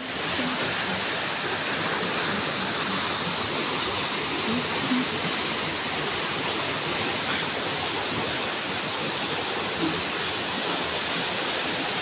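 Fast mountain stream rushing over rocks: a steady, even roar of whitewater.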